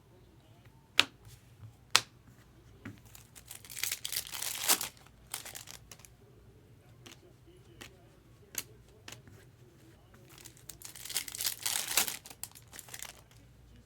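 Trading-card packs being torn open, the wrappers crinkling in two spells, with a few sharp clicks as cards are handled.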